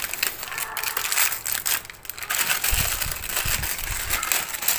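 Thin clear plastic parts bags crinkling and rustling as they are handled and opened by hand, with a few dull low bumps about three seconds in.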